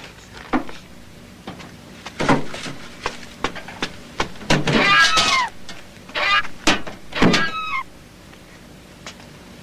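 A cat meowing several times, the calls wavering and falling in pitch, between a few soft knocks.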